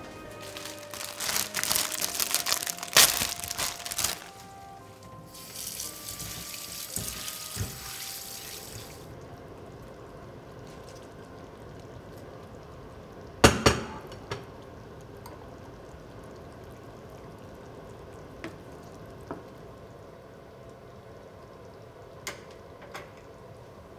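Creamy tomato sauce simmering in a frying pan, under light background music for the first several seconds. A sharp knock comes about halfway through, with a few small clicks after it.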